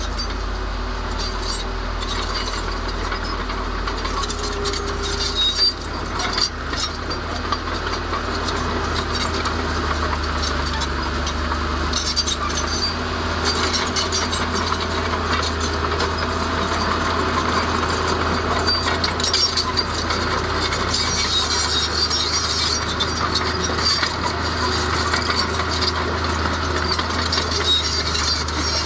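Heavy diesel earthmoving machinery running with a steady low engine rumble, over continuous clattering and scraping of stone and soil, with a few sharp knocks about six seconds in.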